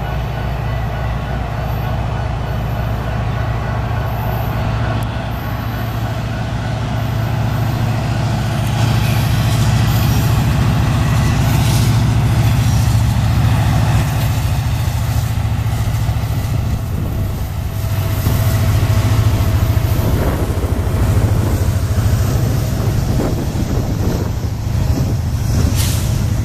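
Freight train passing close by: diesel locomotives running with a steady low drone, then loaded tank cars rolling past with wheel noise and a few knocks on the rails.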